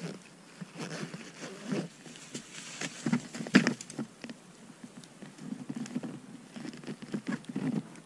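Irregular rustling, crunching and knocks of a person handling a backpack and moving in deep snow against snow-laden spruce branches. The loudest knocks come about three and a half seconds in.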